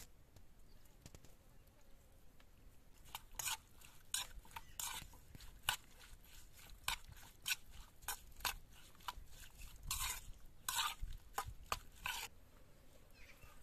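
Metal spoon stirring sliced onions in a metal bowl. It makes an irregular run of sharp clinks and short scrapes against the bowl, starting about three seconds in and stopping near the end.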